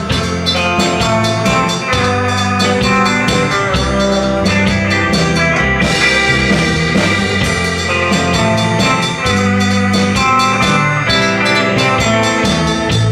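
Sixties-style rock band playing: electric guitar over a moving bass line and a steady drum-kit beat.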